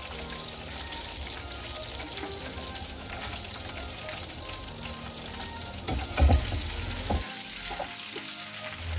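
Batter-coated chicken pieces deep-frying in hot oil, the oil sizzling and crackling steadily as the pieces finish cooking. A few louder knocks come about six to seven seconds in.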